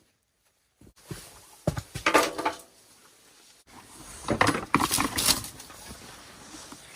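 Dry branches and twigs crackling and snapping in two bursts, one starting about a second in and another about four seconds in.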